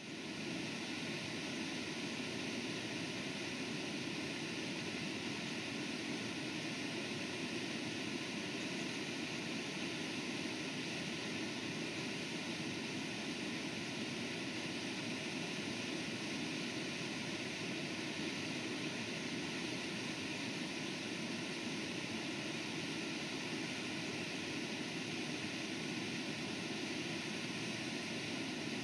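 Whitewater of the Brooks River rushing over and below Brooks Falls, a steady unbroken noise.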